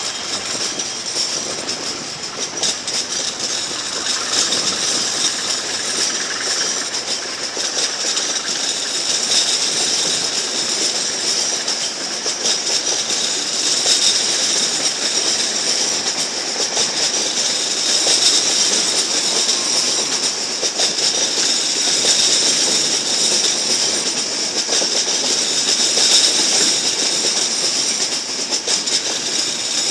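Locomotive-hauled passenger coaches rolling along the station track, wheels clattering over the rails with a steady high-pitched squeal.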